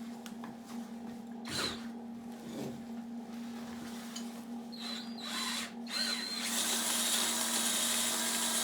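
Handheld power tool, most likely a drill, starts running about six and a half seconds in with a steady hiss-like whir. A few short scrapes and squeaks of metal hardware being handled come before it, over a steady low hum.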